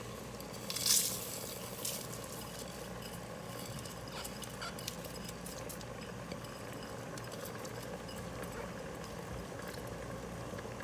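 Dry basmati rice being poured from a bowl into a pot of chicken broth: a short rushing pour about a second in, then soft pattering and ticks of falling grains over a steady low hum.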